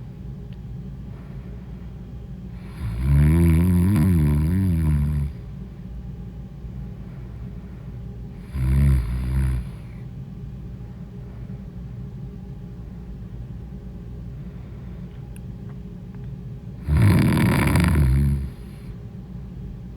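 A woman snoring loudly in three long snores, a few seconds apart, each with a rough, wavering pitch. Between the snores there is a steady low hum.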